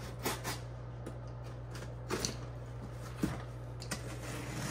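A cardboard shipping box being opened with a box cutter and handled: a few scattered scrapes, rustles and small knocks of cardboard.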